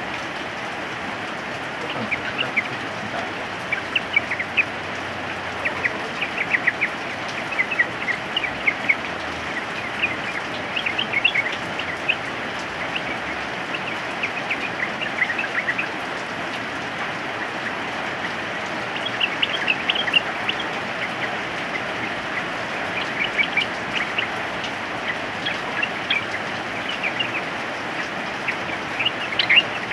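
Yellow-vented bulbuls (trucukan) calling in scattered clusters of quick chirpy notes over a steady hiss of rain.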